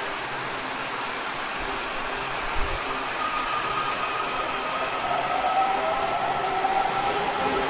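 Washington Metro train's electric motors whining over a steady rumble, the whine rising in pitch from about three seconds in.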